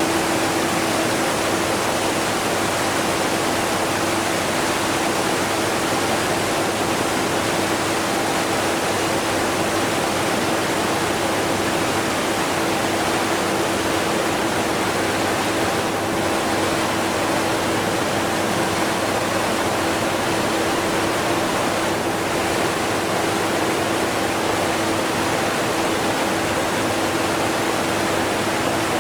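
Steady rushing of a strong waterfall mixed with the running of a vacuum cleaner, heard only as a faint steady hum under the water.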